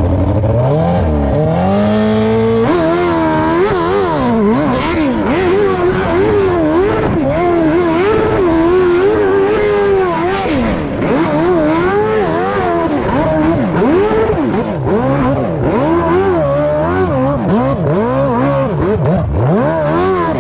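Hill-climb dirt bike engine revving hard through a climb. Its pitch rises steeply at the launch, then rises and falls continually as the throttle is worked, with a few short dips in the second half.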